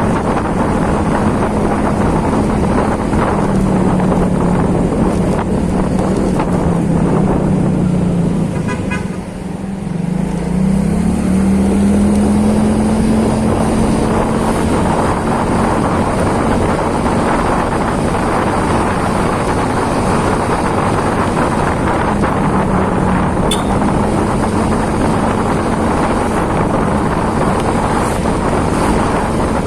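A small engine running steadily under a loud, continuous rush of noise, its pitch sagging and then climbing again about nine seconds in.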